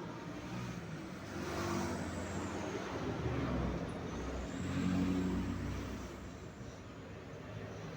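Motor vehicle engines passing, swelling louder about two seconds in and again around five seconds, then fading.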